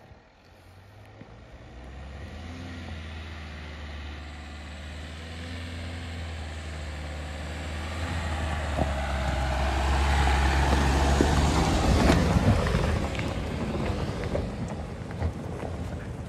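Dacia Duster 4x4's 1.5 diesel engine pulling uphill as the car drives up a gravel forest track, passes close by and climbs away. The engine note grows louder to its loudest about two-thirds through, with tyres crunching over gravel as it passes, then fades.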